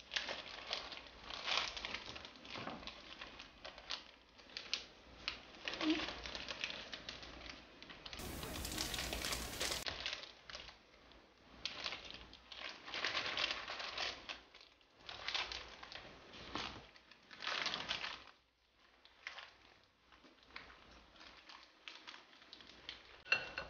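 Clear plastic bag crinkling and rustling in irregular bursts as it is handled and filled with soft cheesecake filling spooned in with a spatula. A short stretch of steady hiss comes about eight seconds in.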